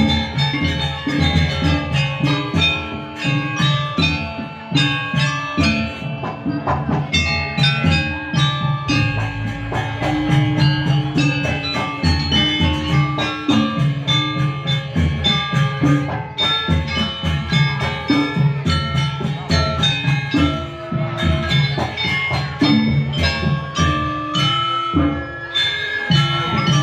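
Gamelan music accompanying a dance: metal-keyed mallet instruments ringing out many quick struck notes over a steady drum pulse.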